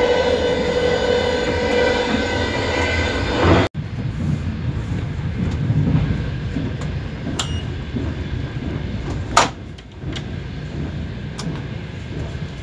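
Moving passenger train heard from inside the carriage. At first there is a steady mechanical hum with several pitched tones. After a sudden cut about three and a half seconds in, a lower rumble takes over, with a few sharp clicks and one loud knock about nine seconds in.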